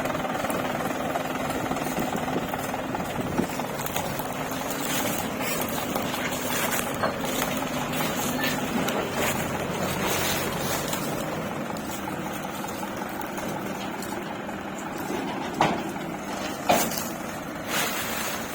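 Diesel engine of heavy earthmoving machinery running steadily, with a few sharp knocks near the end.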